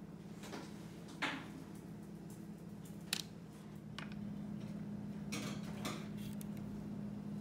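A metal spoon and a wooden skewer clink and scrape lightly while candy coating is worked onto chocolate cups on parchment paper. The sound comes as a few short clicks and scrapes, the loudest about a second in, with a longer rustle a little past the middle, over a steady low hum.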